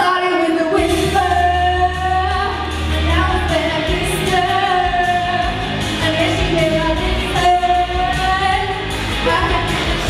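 A young woman singing into a handheld microphone over backing music, holding many of her notes for about a second, with a steady bass underneath.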